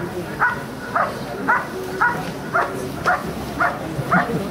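German Shepherd Dog barking steadily at the protection helper, about two barks a second: the sustained hold-and-bark guarding of IPO protection work.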